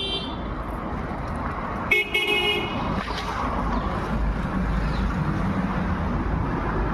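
A vehicle horn honks twice: a short toot right at the start and a longer one about two seconds in, which is the loudest sound. Steady traffic noise runs underneath.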